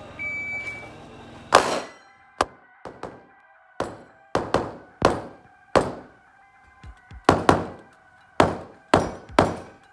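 9mm ADC Match 9 pistol firing a stage string: about a dozen shots, many in quick pairs with short pauses between as the shooter moves from target to target. A short high beep just before, the shot timer's start signal.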